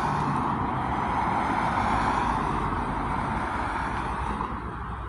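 Road traffic noise: a vehicle going by on the street, a steady rush of tyre and engine noise that slowly fades toward the end.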